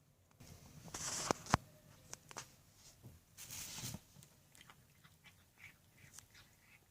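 A cat chewing its food: irregular small clicks and crunches, with two louder noisy bursts, about a second in and again about three and a half seconds in.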